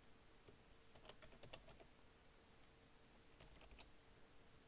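Faint keystrokes on a computer keyboard as a password is typed: a short run of clicks about a second in and another near the end, over a faint steady hum.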